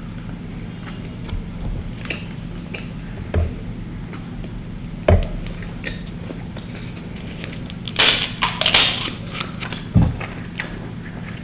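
Close-up eating sounds: scattered small mouth clicks, then a loud burst of crunching about two-thirds of the way through as crisp food is bitten and chewed, with a couple of sharp knocks, over a steady low hum.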